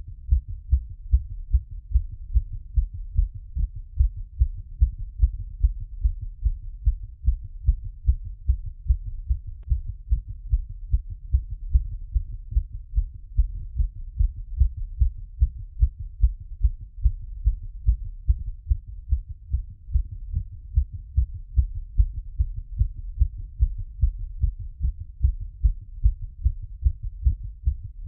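Human heartbeat heard through a stethoscope after exercise: a steady, regular rhythm of low lub-dub thuds.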